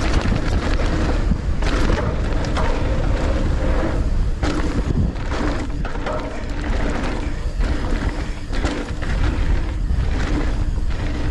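Mountain bike descending a dirt trail at speed: wind rushing over the bike-mounted camera's microphone as a steady low rumble, with the tyres rolling on dirt and frequent sharp clicks and rattles from the bike jolting over bumps.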